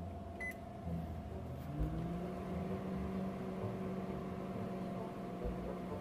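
Panasonic inverter microwave oven starting: a single short keypad beep about half a second in, then a low hum that rises in pitch with a soft thump as it powers up, settling into a steady running hum.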